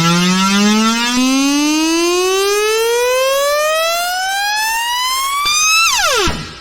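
Black MIDI piano playback, thousands of sampled piano notes sounding at once so they merge into one siren-like tone that rises steadily in pitch for about six seconds. Near the end it drops sharply and stops, leaving a fading ring.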